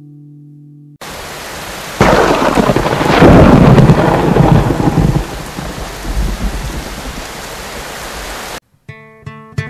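A steady rain-like hiss starts abruptly about a second in. A second later a loud, deep, rolling rumble like thunder swells, rolls on for about three seconds and fades back into the hiss. The hiss cuts off suddenly near the end.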